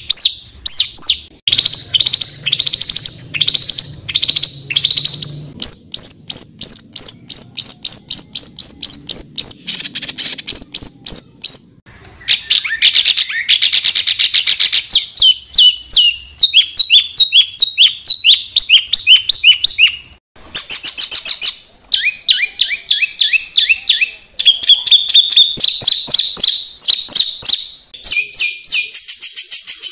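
Songbird 'tembakan' song: fast, dense runs of sharp repeated high notes, switching to a new pattern and pitch every few seconds.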